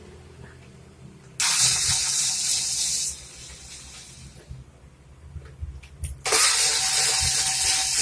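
Two loud bursts of hissing air, each lasting about two seconds, that start and stop abruptly.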